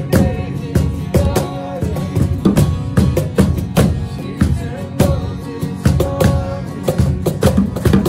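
Acoustic worship band playing: strummed acoustic guitars over a steady beat of cajón and bongo hits.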